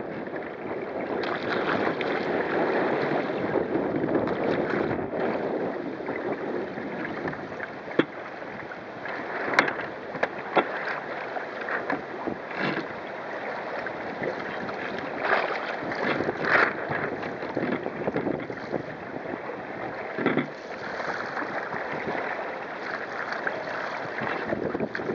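Water rushing along and slapping against the hull of a wooden sailing kayak driven fast through choppy water by strong, gusty wind, with sharp splashes every second or two and wind buffeting the microphone.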